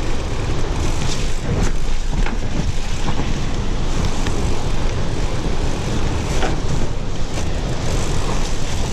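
Mountain bike descending a rough dirt trail: a steady rush of wind over the camera microphone and tyre rumble, with scattered clicks and knocks of the bike rattling over roots and rocks.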